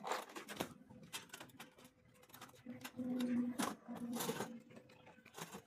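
Steel-pipe table frame and plastic tabletop knocking and scraping as the table is turned over and set upright on gravelly ground: a run of small clicks and knocks, with a louder scraping stretch about three to four and a half seconds in.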